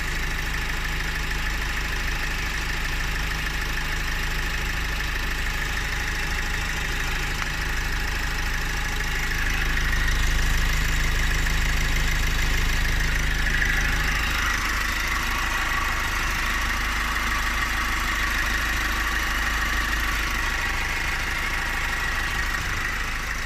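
Opel Astra K engine idling steadily, making the loud engine noise the owner is complaining of, with a steady high whine over the idle that shifts slightly just past halfway.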